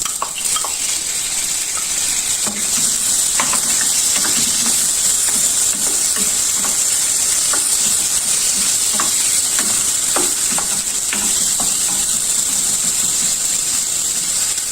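Calamari frying in hot vegetable oil in a pan: a steady loud sizzle, with scattered light clicks and scrapes of a utensil stirring it.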